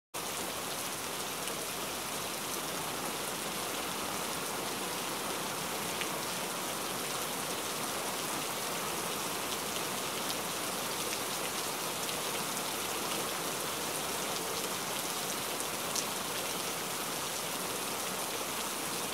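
Steady rain: an even hiss with a few sharper drop ticks.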